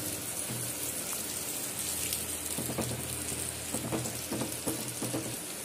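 Garlic cloves and dried prawns sizzling in hot oil in a clay pot, with a steady hiss. From about halfway through, a wooden spatula scrapes and stirs against the clay in short strokes.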